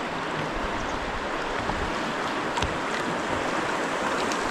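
Fast-flowing river water rushing steadily around a whitewater kayak, with a few light splashes from the paddle blades.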